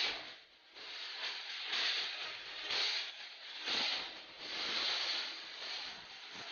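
Footsteps scuffing on dry sandy soil: a soft hiss that swells and fades about once a second.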